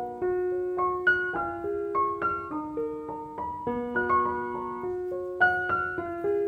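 Background music: solo piano playing a gentle melody of single struck notes over held lower notes.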